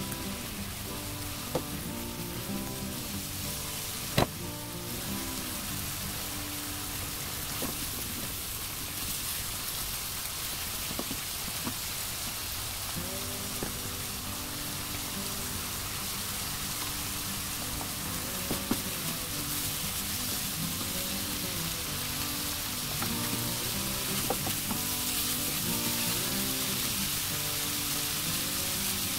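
Potatoes and small dried anchovies sizzling in an oiled wok as they are stir-fried, with a few sharp clicks of the spatula and ladle against the pan. The frying is unusually noisy, perhaps from the moisture in the potatoes.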